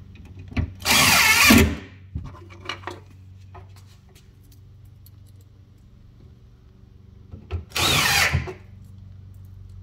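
Cordless impact driver driving screws in two short runs, about a second in and again near eight seconds in. It is fastening plastic corner brackets into a plywood cabinet box, with light handling clicks between the runs.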